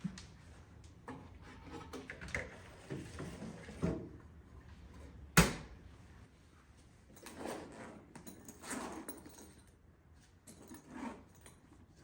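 Scattered handling knocks, clicks and rustles in a small room, with one sharp knock about five seconds in.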